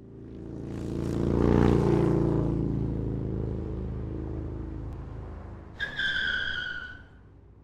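A motorcycle engine passes by: it grows louder to a peak about a second and a half in, then slowly fades away. Near the end comes a short, high squeal that falls slightly in pitch, like a tyre squeal.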